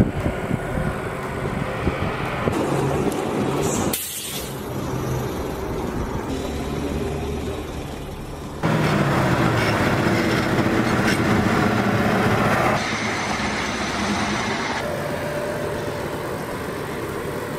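Heavy military vehicle engines running, with a loud, steady mechanical noise that changes abruptly several times as one clip follows another.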